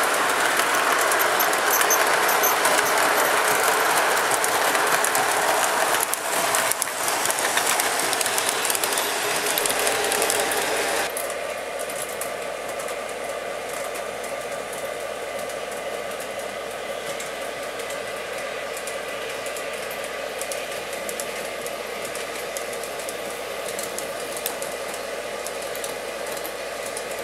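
Several O-gauge model locomotives running on a home layout, their motors and wheels on the track making a steady rattling run. About eleven seconds in, the sound drops suddenly to a quieter steady hum.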